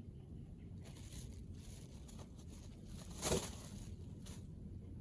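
A plastic bag being handled and crinkled, with scattered faint rustles and one louder, brief rustle a little over three seconds in, over a low steady rumble.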